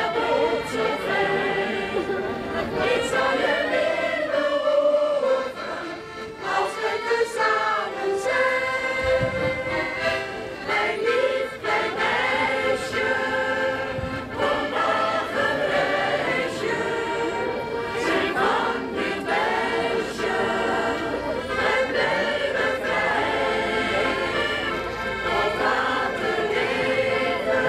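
Mixed choir of men's and women's voices singing a song, with accordion accompaniment and short breaks between phrases about five and ten seconds in.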